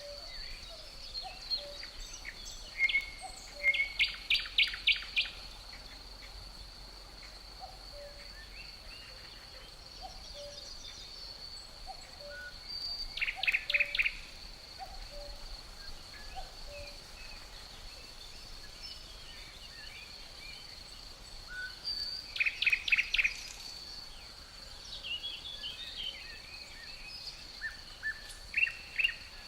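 Songbirds singing outdoors: a bird repeats a phrase of five or six quick notes about every nine seconds, among scattered chirps, over a steady high insect drone. Faint low notes come about once a second underneath.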